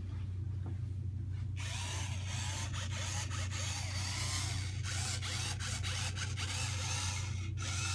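Toy remote-control truck's small electric motor whirring as it drives, starting about one and a half seconds in, faltering briefly a few times, and stopping shortly before the end.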